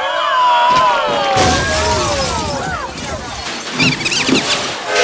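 High, gliding cartoon squeals and yelps, then, about a second and a half in, a crash of a table breaking and things shattering that lasts over a second. High wavering whistle-like squeals follow near the end.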